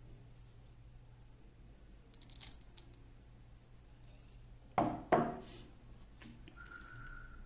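Small sequins poured out and landing on a wooden table with a few light clicks, followed about five seconds in by two sharp knocks a third of a second apart. A faint steady high tone starts near the end.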